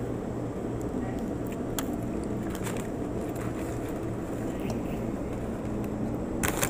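Restaurant dining-room background: a steady low hum with scattered light clicks and clatter, and a louder cluster of clicks near the end.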